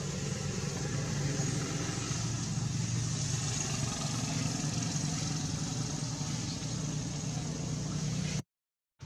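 Steady hum of an engine running, with a constant hiss above it; it cuts off suddenly near the end.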